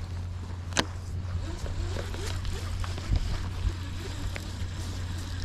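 Steady wind rumble on the microphone, with a sharp click a little under a second in and a knock about three seconds in, from a baitcasting reel being handled while line is pulled off the spool to clear a backlash.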